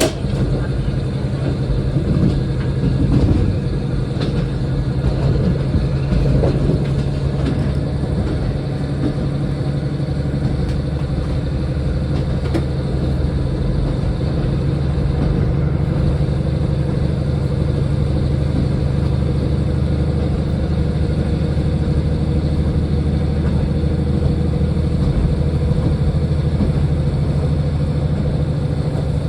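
Diesel train running along the line: a steady engine drone with running noise, the pitch shifting a little in the first few seconds, then holding even.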